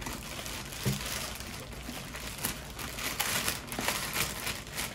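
Thin clear plastic bag crinkling and rustling in the hands as a water flosser unit is worked out of it, a run of small irregular crackles.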